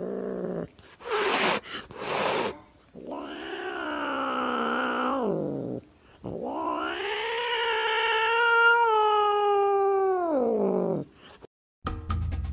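A cat's two long, drawn-out meows, the second longer and higher, each dropping in pitch as it ends, preceded by two brief rushing noises.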